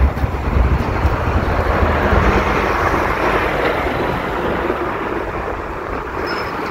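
Street traffic noise, a vehicle passing that swells and then fades, with wind rumbling on the phone's microphone.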